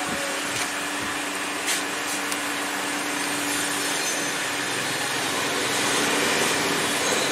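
Steady whirring machine noise with a constant low hum, and a few light clicks in the first two seconds as hands work the fuel hose.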